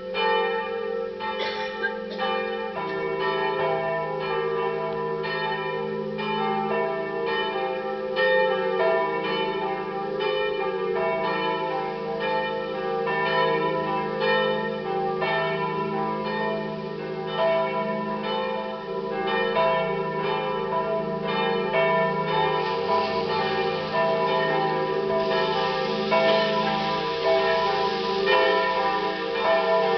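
A Catholic parish church's bells swinging and ringing together in a full peal, their strokes overlapping with long ringing tones, as the call to the Saturday evening vigil mass. A deeper bell joins in about three seconds in.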